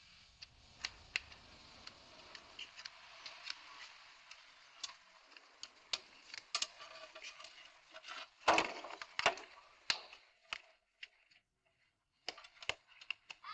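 Small metal clicks, ticks and rattles of door lock parts and tools being handled. A louder scraping rattle comes about eight and a half seconds in, then a brief lull before a few more clicks.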